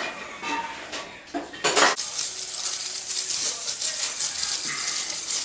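Cleaning a rusty engine block by hand: a few light clinks, a short loud spray burst of penetrating oil, then several seconds of fast scrubbing strokes on the metal.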